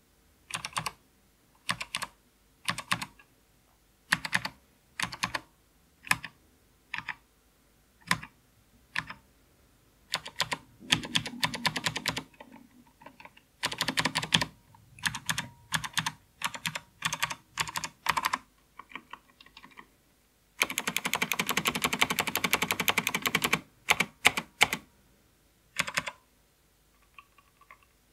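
Typing on an Ortek MCK-84 vintage keyboard with clicky SKCM Blue Alps switches, each keystroke a sharp click. Short clusters of keystrokes come at first, then faster runs, with a rapid unbroken flurry of about three seconds about two-thirds of the way through.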